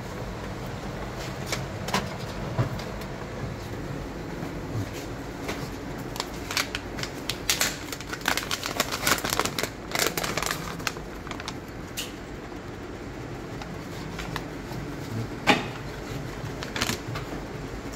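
A printed plastic ziplock pouch crinkling and rustling as it is handled, with a dense run of sharp crackles and clicks in the middle and one sharp click near the end, over a steady background hum.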